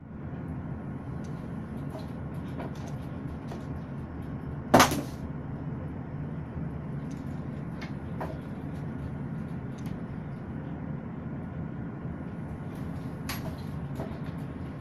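Unexplained knocks and ticks in a ship's cabin over a steady low hum: scattered light ticks, one sharp knock about five seconds in and another clear one near the end.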